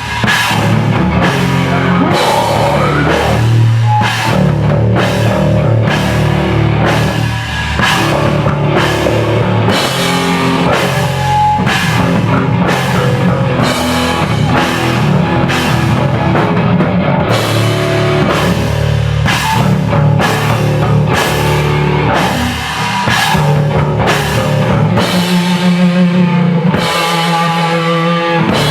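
A live rock band playing: a drum kit keeps a steady beat of about one and a half to two hits a second under the full band.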